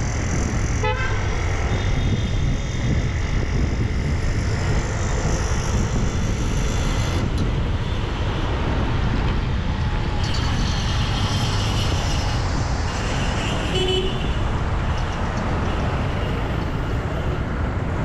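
Busy city road traffic: a steady low rumble of engines and tyres, with short horn toots from the surrounding vehicles, one about a second in and another near the end.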